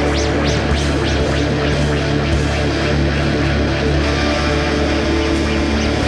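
Live instrumental band of electric guitar and drums playing a dense, loud wall of sound over a low sustained drone.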